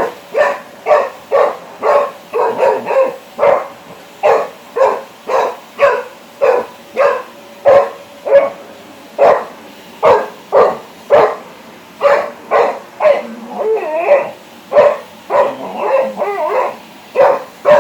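Labrador retriever puppy barking over and over at a running vacuum cleaner, about one to two barks a second, with a few whining, yelping sounds mixed in near the end.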